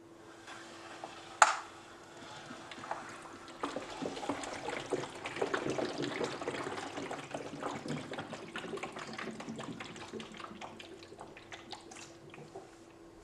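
Blue-tinted water sloshing and trickling inside the clear plastic chambers of a Pythagorean theorem demonstration wheel as it is turned, with many small splashy clicks that build up and then fade near the end. A single sharp knock about a second and a half in is the loudest sound.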